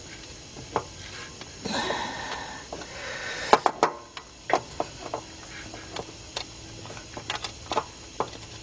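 Irregular metallic clicks and clinks of a quarter-inch drive ratchet and 13 mm deep socket working on the nut behind a starter motor as the nut is loosened.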